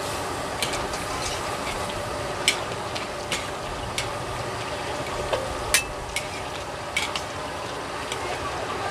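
Two long metal spatulas tossing stir-fried vegetables and pork skin in a large metal wok: a steady sizzle with irregular sharp clinks of the spatulas striking the pan.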